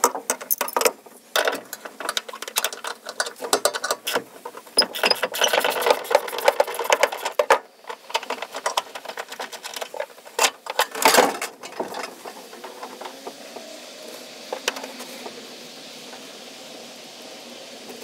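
Hand ratchet wrench clicking in quick runs as nuts are backed off on a car's rear body panel, with scattered metal clinks. The clicking stops for the last several seconds.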